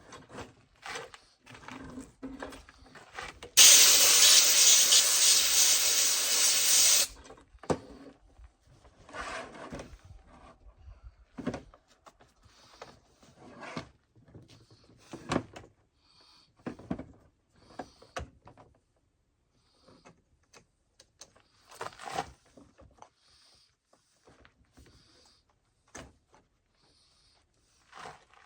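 A blast of compressed air from an air-compressor blowgun, a loud steady hiss lasting about three and a half seconds, cleaning out a chainsaw. Around it, scattered light knocks and clicks of the saw and tools being handled.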